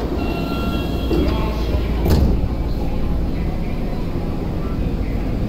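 Train doors on a Tokyu 8500 series subway car sliding shut, closing with a thud about two seconds in, over the stationary train's steady low hum. A short electronic tone sounds just before the doors close.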